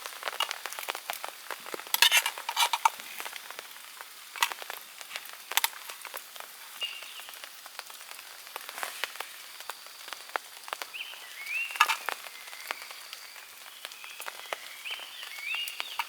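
Rain pattering and dripping as a dense run of irregular sharp ticks and crackles, with a few louder clusters. In the second half an animal gives short rising chirps, repeated several times.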